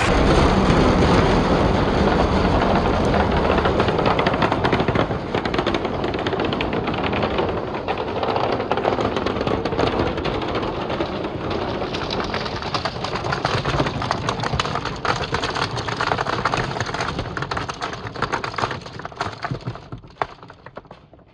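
A crowd of billiard balls rolling down a wooden marble-run slope: a dense, continuous clatter of balls knocking against one another and the wood. Near the end it thins into separate clicks and dies away as the last balls run out.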